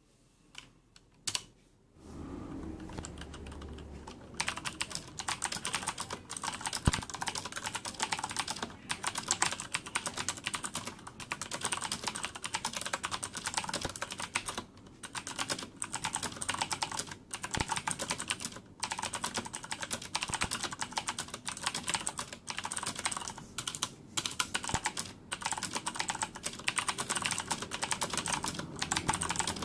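Corsair K70 mechanical keyboard with Cherry MX Blue clicky switches and no O-ring dampeners, being typed on. A couple of single key clicks come first, then fast, continuous typing starts about four seconds in, broken by short pauses.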